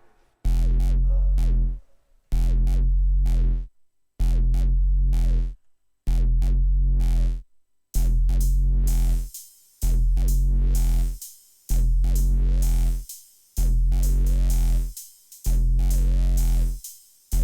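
Electronic synthesizer music: a low bass tone held for about a second and a half, repeated at the same pitch roughly every two seconds with short silences between. From about halfway in, a hissy, noisy high layer sounds over each note.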